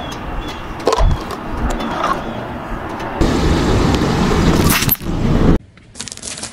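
Car tyre rolling slowly over asphalt onto small plastic squeeze bottles of liquid drink mix, with knocks and a sharp crack near the middle as they are run over. The sound drops off abruptly about five and a half seconds in.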